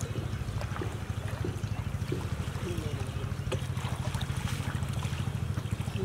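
A small engine running steadily, with a fast, even pulse.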